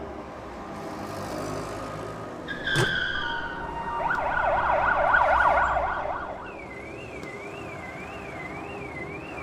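City traffic rumble with a car horn blast and a sharp knock, then emergency vehicle sirens: a fast warbling yelp siren about four seconds in, the loudest part, giving way near six and a half seconds to a slower wail rising and falling about twice a second.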